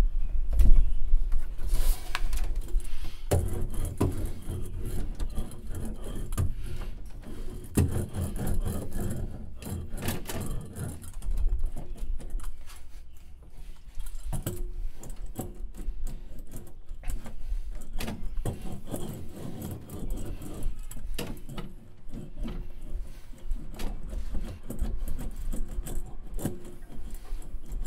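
Irregular rubbing, scraping and light clicking as hands and a small hand roller work over foil-faced sound-deadening mat and loose wiring, with a few dull thuds. Soft background music plays underneath.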